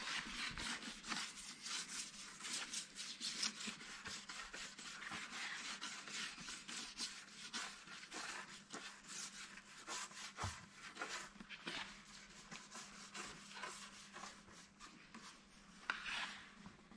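Glue being rubbed and spread over a bundle of split-bamboo rod strips with fingers and a small plastic spatula: a faint, irregular run of short rubbing and scraping strokes.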